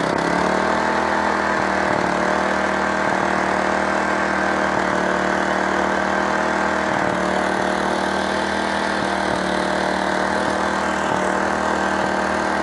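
Small Honda portable generator's engine running at a steady speed, an even unbroken hum.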